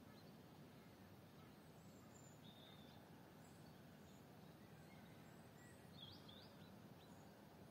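Near silence with a low, steady background rumble and a few faint bird chirps: a short one about two and a half seconds in and a brighter double call about six seconds in.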